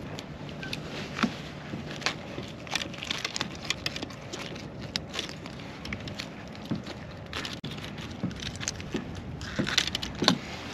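Irregular small clicks and rattles of a hard plastic needlefish lure and its treble hooks being worked free from a small striped bass's mouth by hand, over steady low background noise.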